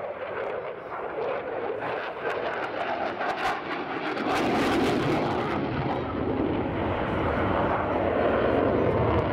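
Saab JAS 39 Gripen's single Volvo RM12 turbofan jet engine heard during a display pass, a continuous jet noise that grows steadily louder, with a deep low rumble joining about four seconds in.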